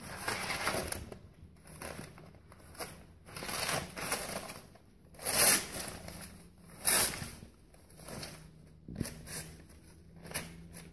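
Rabbit digging and moving through crumpled newspaper in a cardboard box: irregular bursts of paper rustling and crinkling, the two loudest about halfway through.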